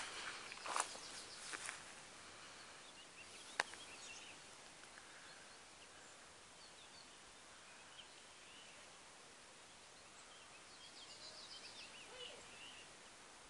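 A few rustling footsteps through grass in the first couple of seconds, then faint scattered bird chirps of the dawn chorus, with a short quick trill near the end.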